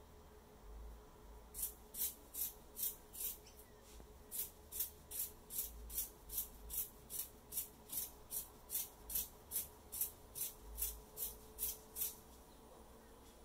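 Scissors cutting fiberglass cloth: a steady run of short snips, about two and a half a second, with a brief pause about three seconds in, stopping near the end.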